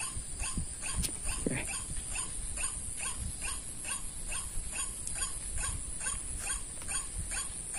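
White-breasted waterhen (ruak-ruak) call: a short, falling note repeated evenly about three times a second, over a steady high hiss.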